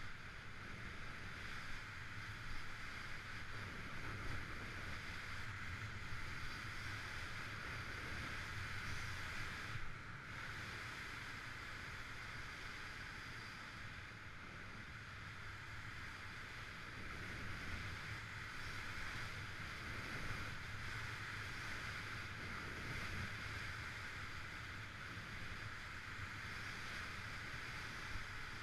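Skis running fast over groomed snow, a steady hiss and scrape of the edges, with wind rushing over the microphone as a low rumble underneath; there is a brief lull about ten seconds in.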